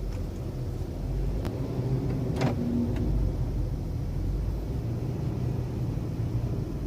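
Steady low road and engine rumble inside the cabin of a 2016 Honda Civic on the move, with two sharp ticks about a second and a half and two and a half seconds in, the cabin rattle being recorded.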